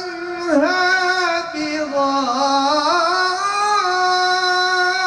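A man singing a slow solo melody into a microphone. He holds long notes that glide and waver in ornamented turns.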